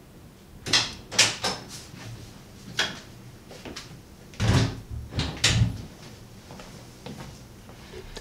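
A person moving about a small room: a door handled and footsteps on a wooden floor, heard as a series of sharp knocks and clacks, the heaviest two thuds about halfway through.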